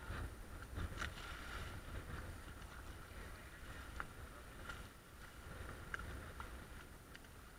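Small motorboat moving slowly through choppy water: a low, uneven wind rumble on the microphone with faint water sloshing along the hull and a few brief slaps of water, near 1, 4 and 6 seconds in.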